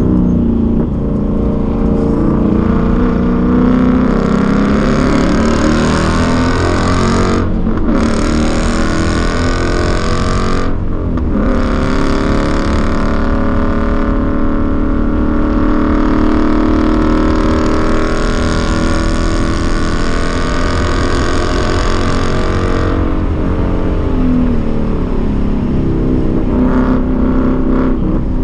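Ford Mustang engine heard from inside the cabin under hard track driving, its note rising and falling with throttle and shifts. Over it runs a high hiss that cuts out briefly twice, about a third of the way in.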